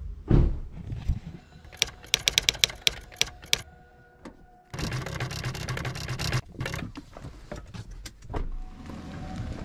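Car handling at night: a quick run of sharp clicks, then the car's engine starts abruptly about five seconds in and runs steadily.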